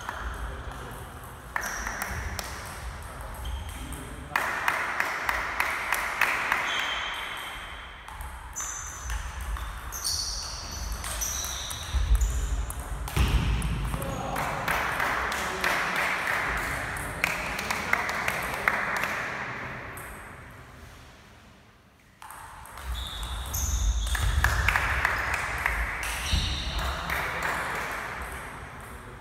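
Table tennis rallies: the ball clicking back and forth off the rubber-faced bats and the table in quick runs of sharp taps. There is a brief lull between points about three-quarters of the way through.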